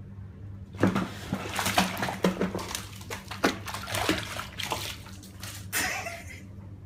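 A kitten splashing and scrambling in foamy bathwater: a quick run of sharp splashes starts about a second in, lasts about five seconds, and stops near the end.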